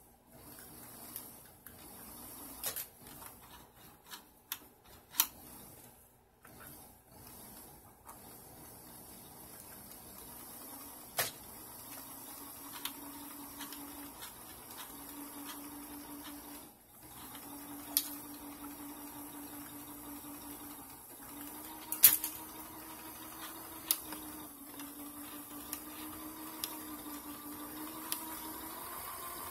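A freshly oiled Bernette overlock (serger) machine running, its motor humming steadily with a few short stops along the way. A few sharp clicks stand out over the hum.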